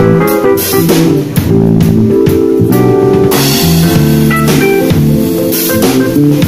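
Live instrumental trio of keyboard, electric bass and drum kit playing a samba-jazz groove, with keyboard chords over a moving bass line and steady cymbal and drum strokes.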